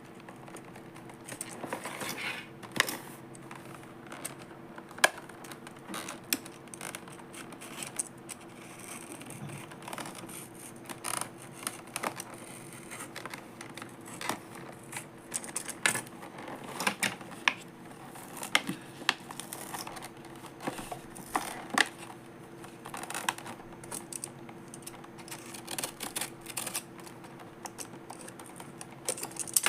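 Small plastic toy pieces and packaging being handled: irregular clicks, taps and light crinkles, some sharper than others, over a faint steady hum.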